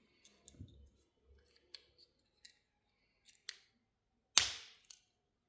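Plastic Audi flip key fob being snapped back together: faint scattered clicks as the parts are handled, then one loud, sharp snap about four and a half seconds in as a part clicks home.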